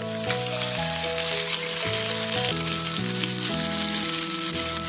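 Diced potatoes sizzling as they fry in hot mustard oil in a kadai, a steady hiss, under background music.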